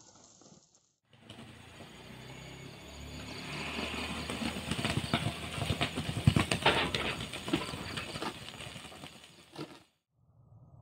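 Heavy machinery running with a low engine hum and many metallic clanks and rattles. It grows louder towards the middle and then fades, starting about a second in and cutting off suddenly near the end.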